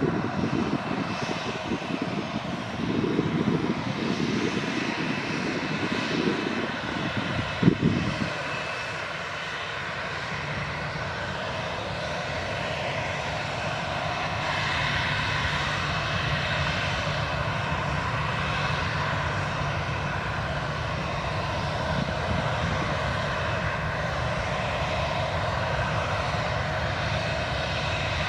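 Boeing 737-800's CFM56-7B jet engines running at taxi idle: a steady whine over a low rumble. Uneven low rumbling gusts come and go over the first several seconds, and a sharp brief knock sounds about eight seconds in.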